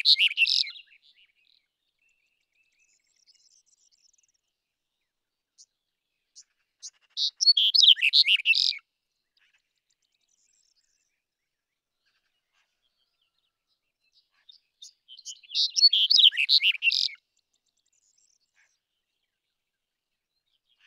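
Black-headed bunting singing: short phrases of rapid notes. One phrase ends about a second in, and two more follow about eight seconds apart, each lasting a second and a half to two seconds, with a few single short notes in between.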